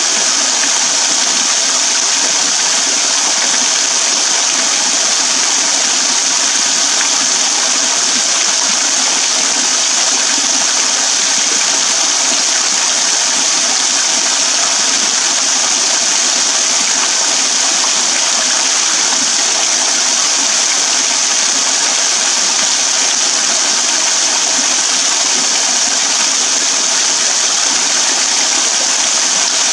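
Thin waterfall pouring and dripping off a rock overhang, splashing onto wet ground and a shallow puddle: a steady, even splashing hiss that does not change.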